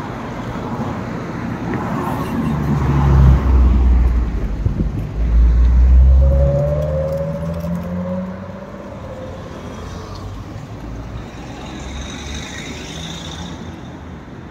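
Road traffic passing close by: a van and cars drive past, loudest about three and six seconds in, with one engine rising in pitch as it accelerates. The traffic then drops to a quieter steady hum.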